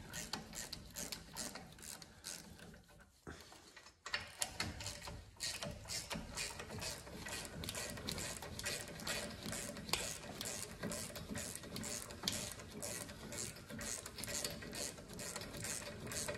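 Hand ratchet clicking in quick, even strokes, about three a second, as the 17 mm caliper bracket bolts are spun out. There is a brief pause about three seconds in.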